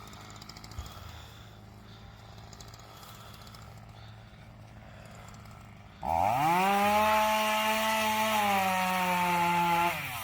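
Chainsaw idling, then revved hard to full throttle about six seconds in. It holds for about four seconds, its pitch sagging a little, and drops back to idle near the end.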